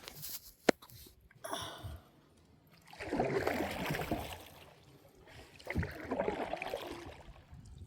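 Water splashing and sloshing in a few long bursts, with a single sharp click just under a second in.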